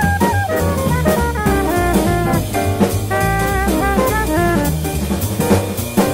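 Jazz quartet playing: a soprano saxophone plays fast runs and a few held notes over piano, double bass and a drum kit with steady cymbal strokes.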